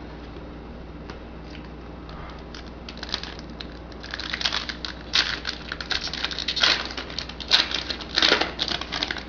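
Trading-card pack wrapper being torn open and crinkled by hand, with cards handled. It starts with soft scattered rustles and gets louder, with dense crackling, from about four seconds in.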